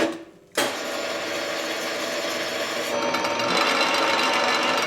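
Machine motor running steadily. It drops out briefly at the start and picks up again about half a second in, then grows a little louder and whinier about three seconds in.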